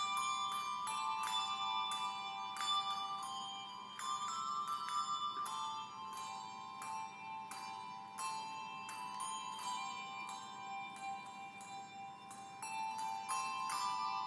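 Handbells rung as a melody: about two struck notes a second, each ringing on into the next.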